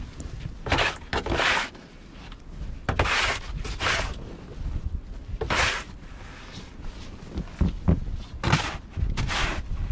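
Snow shovel scraping across a snowy wooden deck in repeated strokes about a second apart, about seven in all, with a few dull knocks of the blade on the boards between them.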